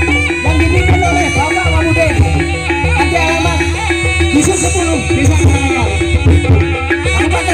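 Live accompaniment music for a Javanese barong dance: drumming over sustained tones, with a wavering melody line, loud and continuous.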